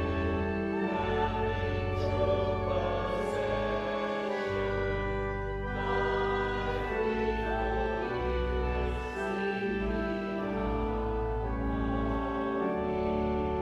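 A slow hymn: a choir singing long held chords over instrumental accompaniment, the chord changing every second or two.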